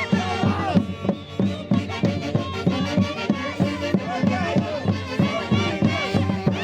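Music in the style of the Santiago festival of Peru's Mantaro valley, played by a band: wavering melody lines over a steady, evenly repeating beat.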